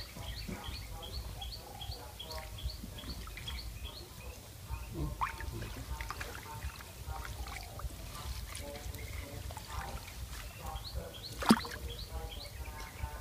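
Water sloshing and dripping as a wire-mesh net trap is lifted and handled in a shallow, weedy ditch. A rapid repeated high chirp runs at the start and again near the end, and a single sharp knock near the end is the loudest sound.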